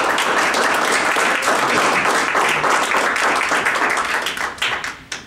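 Audience applauding: dense clapping that thins to a few last claps and dies away near the end.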